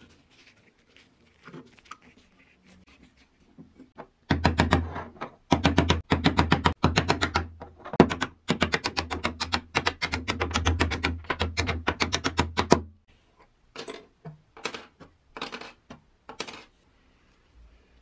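Small hammer tapping a flat metal ring-shaped plate of a coffee grinder in a rapid run of blows, several a second for about eight seconds with brief pauses. Then about six single strikes, each with a short metallic ring. A few faint clicks come first.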